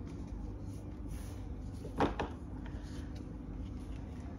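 A sharp double knock about two seconds in, over a steady low hum.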